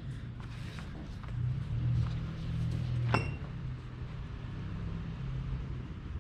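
A steady low engine hum from a car, with light clicks and one sharp metallic clink about three seconds in, like a ratchet-strap buckle knocking.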